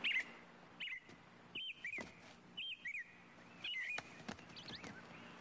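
Bird chirping: short, twisting calls repeating about once a second, growing weaker near the end, with a couple of sharp ticks.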